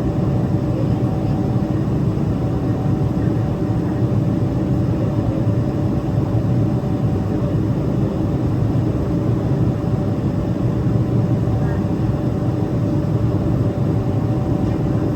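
Cabin noise of a Boeing 777-300ER in flight: the steady rushing drone of its GE90 jet engines and the airflow, with a faint, even hum of a couple of tones.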